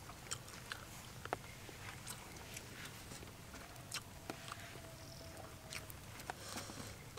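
Scattered small clicks and smacks of someone chewing and eating grilled fish by hand, over faint low background noise.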